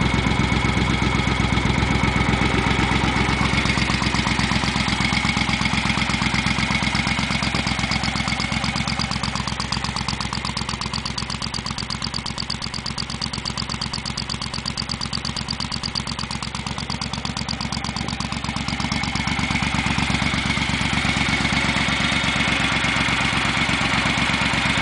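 1971 Moto Guzzi Ambassador's air-cooled V-twin, bored out to 850, idling through new Dunstall replica exhaust pipes just after a cold start. The idle runs steadily, easing a little quieter in the middle and picking up again near the end.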